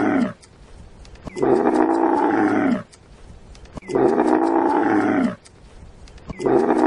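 Camel bellowing: a long, moaning call whose pitch drops at its end, repeated the same way about every two and a half seconds, three full calls after the tail of a previous one.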